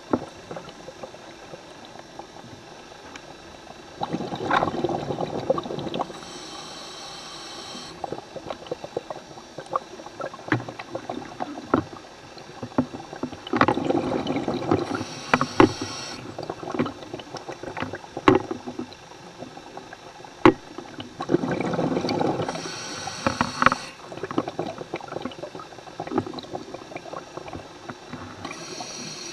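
A scuba diver breathing underwater, heard through the camera housing: a high hiss of inhalation through the regulator alternates with a rushing, bubbling surge of exhaled air. This makes about three breath cycles, with small clicks and knocks scattered throughout.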